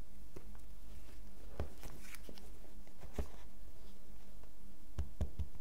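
Cardboard smartphone box handled and turned over on a desk: a few light taps of the box on the surface and a brief scrape around two seconds in, then three quick knocks near the end, over a steady low hum.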